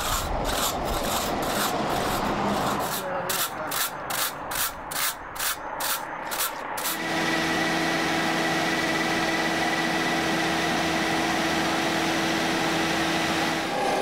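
A steel scraper blade drawn repeatedly across fine-milled concrete, about two to three rasping strokes a second. About seven seconds in it gives way to the steady, even running of a Road Twister 2000 concrete fine-milling machine, with a constant hum.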